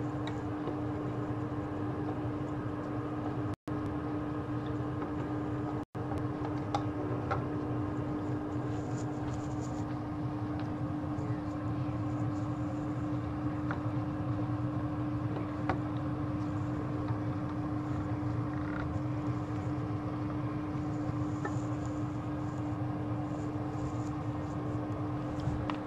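Chicken curry simmering in a frying pan on the stove, with small scattered pops over a steady low hum. The sound cuts out briefly twice within the first six seconds.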